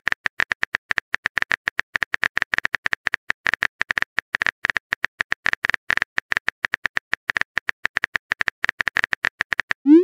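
Simulated phone keyboard typing sound effect: rapid, uneven clicks, about seven a second, one per letter as a text message is typed. At the very end a short rising swoosh as the message sends.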